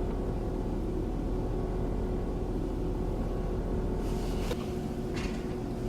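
Steady hum of a Chevy Tahoe's engine and cabin heard from inside the vehicle, with a low rumble underneath that drops away about four and a half seconds in. Two brief faint hisses come near the end.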